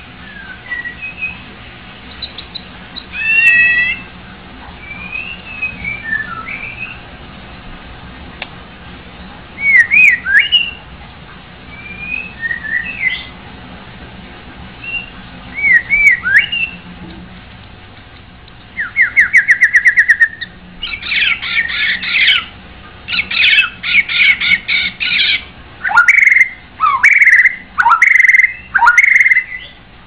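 White-rumped shama singing: varied whistled phrases that glide up and down, separated by short pauses. A bit over halfway through the song turns to fast rattling trills, and near the end to loud downward-swooping whistles.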